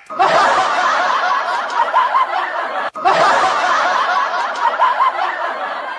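Canned audience laughter: many people laughing together, cutting out for a moment about three seconds in and starting again.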